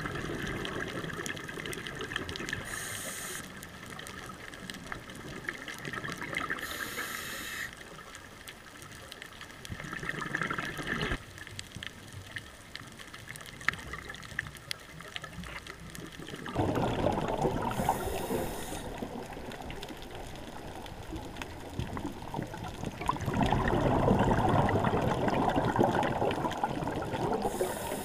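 Scuba regulator breathing heard underwater: long bubbling rushes of exhaled air alternating with short high hisses of inhalation through the demand valve, about four breaths.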